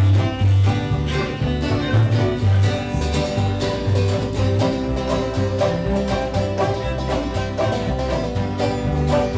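Bluegrass band playing an instrumental passage: banjo and guitar picking over a steady low beat.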